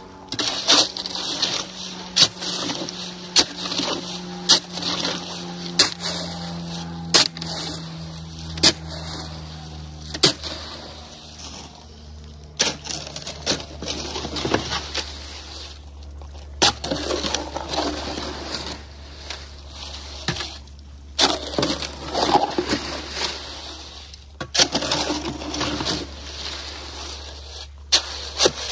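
A shovel scraping and chopping through wet concrete mix in a wheelbarrow, repeated strokes roughly once a second, with denser scraping in the second half.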